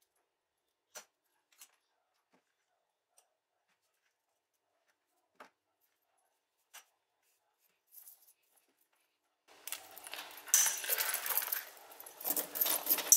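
A few small separate clicks, then from about nine and a half seconds in a metal bag chain jangling and clinking steadily as it is handled and yarn is pulled through its links.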